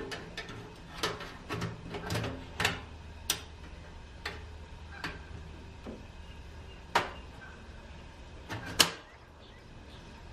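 A series of sharp metal clicks and clacks as a butane canister is fitted into a Coleman portable butane stove. The loudest clack comes near the end, when the canister compartment cover is snapped shut.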